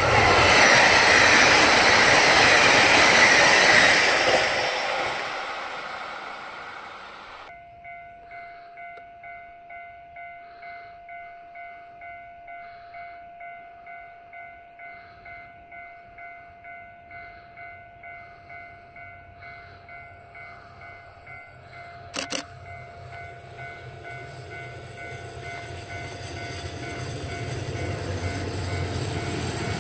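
A limited-express electric train passes close by at speed and fades away within a few seconds. A level-crossing alarm then rings steadily, about twice a second, with a brief sharp crack about two-thirds of the way through. Near the end the diesel engine of a KiHa 40 railcar grows louder as it approaches.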